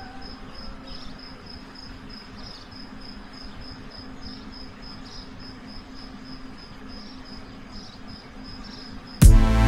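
Crickets chirping in a steady, high, pulsing trill over a low steady hum. Near the end, loud electronic music with a beat cuts in suddenly.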